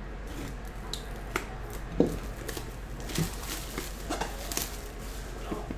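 Hard plastic card cases being handled and set down on a table: a few light knocks and clicks, the loudest about two seconds in.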